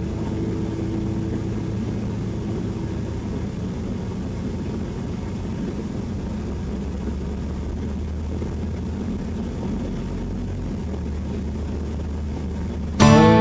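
Steady low rumble of engine and road noise from a vehicle driving slowly along a street, heard from inside the vehicle. Background guitar music cuts in suddenly just before the end.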